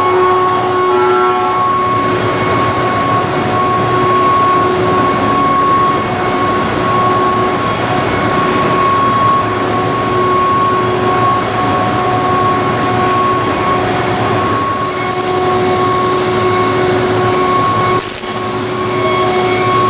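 High-speed 5-axis CNC machine milling aluminum: several steady cutting tones that fade out and return over a dense noisy hiss, with a short dip in level near the end.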